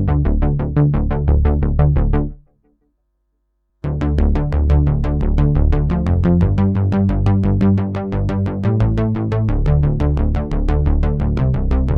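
Waldorf Microwave wavetable synthesizer playing a fast sequenced bass line of repeated notes, about six or seven a second, heavy in the low end. It stops a little over two seconds in, falls silent for about a second and a half, then the same line starts again.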